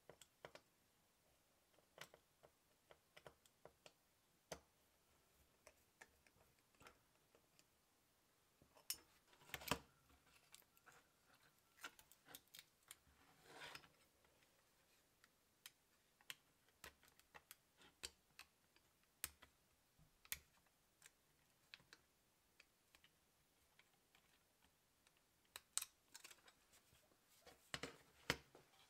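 Faint, irregular small clicks and taps of a precision screwdriver and fingertips on the opened Zune's metal and plastic parts, as screws are backed out and parts handled. A longer scraping rustle comes about halfway through, and a quick cluster of clicks near the end as the hard drive is lifted out of its bay.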